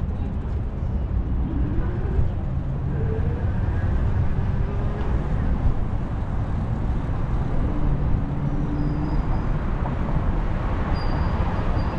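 Steady low rumbling outdoor noise, with faint voices in the background.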